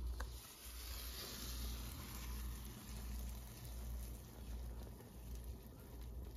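Faint steady low hum with a light hiss, and a few soft clicks.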